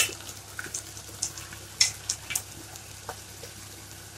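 Chopped onion and garlic frying gently in oil in a steel pot, with scattered light crackles. A steel ladle clanks sharply against the pot at the very start.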